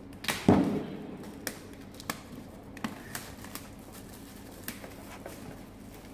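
Plastic shrink wrap being picked at and peeled off a cardboard box, crinkling with scattered sharp crackles. A louder crackle with a knock of the box about half a second in.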